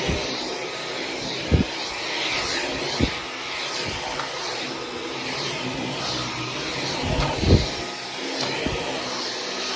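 Dyson V15 Detect cordless stick vacuum running steadily, a constant rushing of air with a thin high whine, and a few dull knocks as it works.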